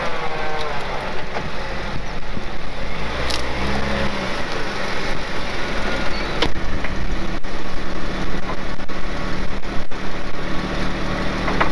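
Jeep Wrangler TJ's engine running steadily as the Jeep creeps forward over dirt into position, with a short rise in engine speed about three to four seconds in.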